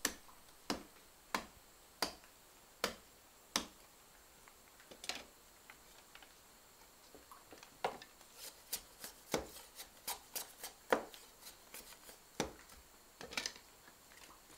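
Knife blade chopping into green bamboo: sharp knocks about one every 0.7 s at first, then a quicker run of lighter taps in the second half.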